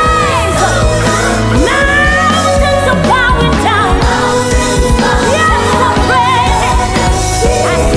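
Live worship music: women's voices singing into microphones over a band, holding long notes with vibrato over a steady bass.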